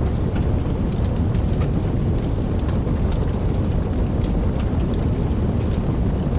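Wood campfire burning: a steady low rumble of flame with many soft, scattered crackles and small pops from the burning wood.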